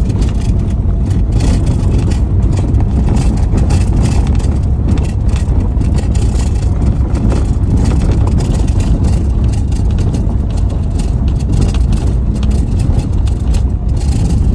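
Vehicle driving on a gravel road, heard from inside the cabin: a steady low engine and road rumble with constant crackling and clicking of gravel under the tyres.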